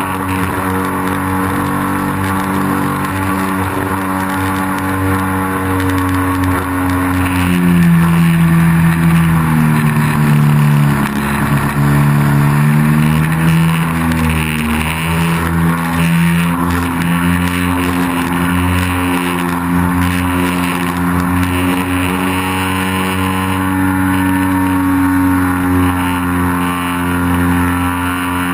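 Engine and propeller of a Piper plane in flight, heard through a camera mounted on its wing. It runs with a steady drone whose pitch drops about eight seconds in, stays low for several seconds, then climbs back to a steady pitch.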